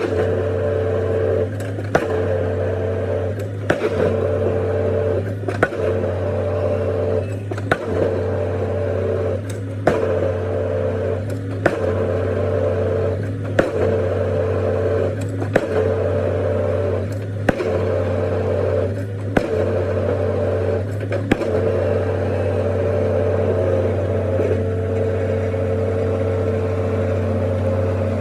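Excavator-mounted pile-driving hammer striking a concrete pile about once every two seconds over the excavator's steady engine hum. The strikes stop a little over twenty seconds in while the engine keeps running.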